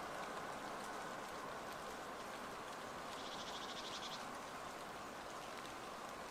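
Faint steady hiss of light rain in wet woodland, with a short, rapid high trill lasting about a second, around three seconds in.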